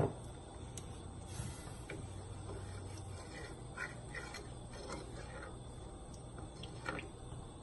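Wooden spoon stirring watery masala in an aluminium pressure cooker: faint sloshing and light scrapes against the pot. A single sharp knock right at the start is the loudest sound.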